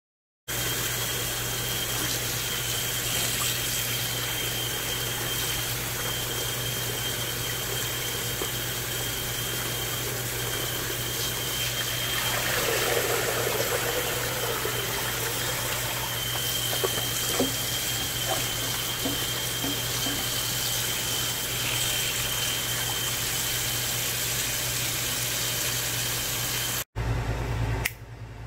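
A kitchen tap running steadily into a colander of chopped collard greens as they are rinsed in the sink, stopping suddenly near the end.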